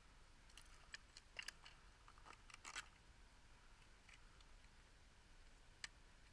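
Near silence, broken by a few faint, sharp clicks and taps in the first three seconds and one more near the end.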